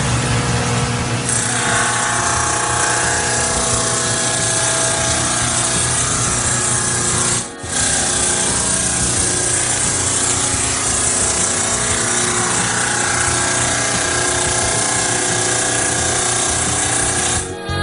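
Poseidon Lotus 8000 bridge saw's blade cutting through a stone slab: a loud, steady grinding noise with a sustained whine. It drops out briefly about seven and a half seconds in, then carries on.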